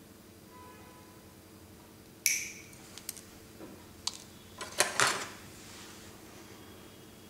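Small side cutters snipping the solder-tinned ends of a three-conductor lead wire. One sharp metallic snip with a brief ring comes about two seconds in, followed by several smaller clicks and knocks over the next three seconds.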